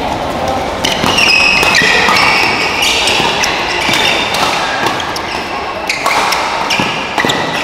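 Badminton doubles rally on an indoor court: shoe soles squeaking on the court floor over several seconds, with a few sharp racket strikes on the shuttlecock.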